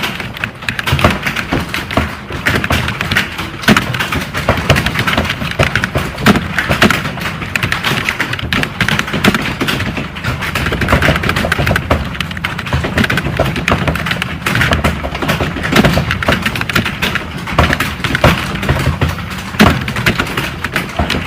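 Computer keyboard typing: fast, continuous clacking of keys, several keystrokes a second with no pause.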